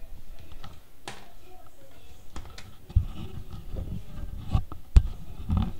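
Handling noise from a camera being moved about: scattered sharp clicks and several low bumps, the loudest about three and five seconds in.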